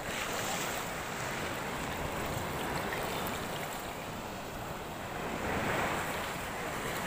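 Sea water washing and surging around people standing in the shallows, with a swell growing louder about five to six seconds in. Wind buffets the microphone.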